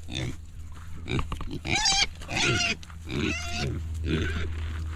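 Pigs squealing and grunting while squabbling over food, with three high squeals between about a second and a half and three and a half seconds in.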